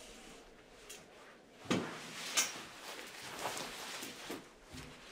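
Handling sounds as a person stands up and pulls on a jacket: two sharp knocks less than a second apart about two seconds in, then the fabric of the jacket rustling, and a soft thump near the end.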